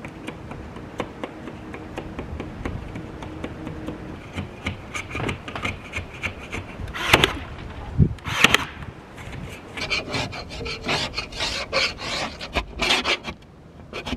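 Hand scraper blade scraping dried white sealant off window glass and its frame, in repeated rasping strokes. Two louder scrapes come around the middle, then a run of quick strokes to the end.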